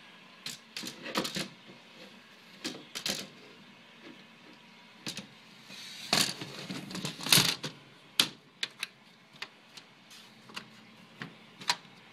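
Irregular clicks, taps and rustles of a plastic pet enclosure being handled, with a denser, louder cluster about six to seven and a half seconds in.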